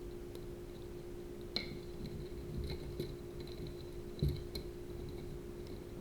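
Small parts of a CubeSat kit being handled during assembly: a few faint clicks and light knocks, the clearest about one and a half seconds in and again near four seconds, over a steady low hum.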